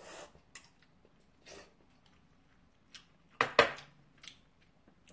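A person eating ramen noodles from a bowl with chopsticks: short slurps and chewing. About three and a half seconds in, the ceramic bowl comes down on the glass tabletop with a couple of sharp clacks, the loudest sound, and a lighter clack follows.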